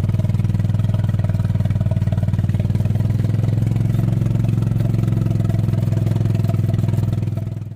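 A small engine running at a steady speed close by, with a fast even pulse; it fades out at the very end.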